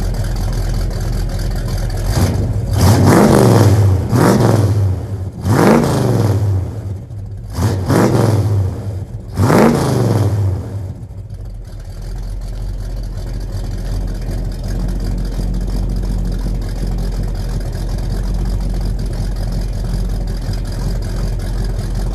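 1970 Buick GS455's 455 V8 through a 3-inch exhaust with SpinTech mufflers, blipped about four times from roughly two to ten seconds in, each rev rising sharply and falling back. It then settles into a steady idle.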